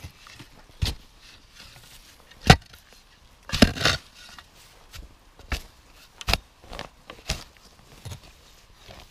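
A spade digging in grassy forest soil: about ten separate chops and scrapes of the blade into sod and earth at an uneven pace, the sharpest a little over two seconds in, and a longer scraping scoop of dirt about three and a half seconds in.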